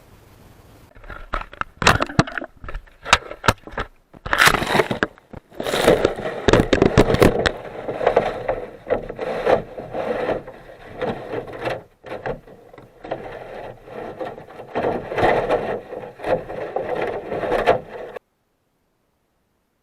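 Irregular scraping with many sharp knocks and clatters, starting about a second in and cutting off abruptly near the end.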